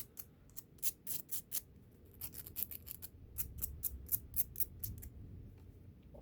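Coarse 120-grit sandpaper scuffing a steel paperclip wire in short, quick back-and-forth scratching strokes, roughening it for solder to bind, with a brief pause about two seconds in.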